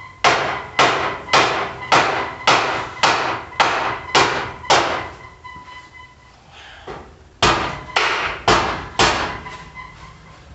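Hammer blows on ringing steel, driving a frame part into place to close the gap before it is welded. About nine blows at a steady two a second, a pause of a couple of seconds, then four more.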